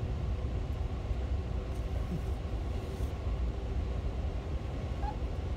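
Amtrak passenger train rolling along the track, a steady low rumble with a faint hum, heard from aboard the train.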